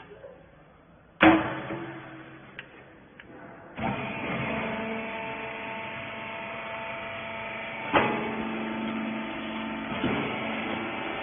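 Baler machine at work: a loud metal clank about a second in that rings and fades, then the machine starts about four seconds in and runs with a steady hum, with further knocks about eight and ten seconds in.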